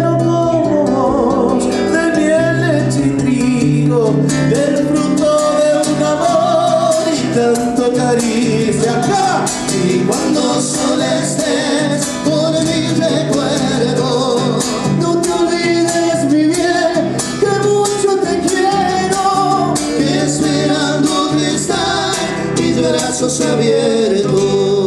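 Live Latin ballad: male voices singing together into microphones over a strummed acoustic guitar.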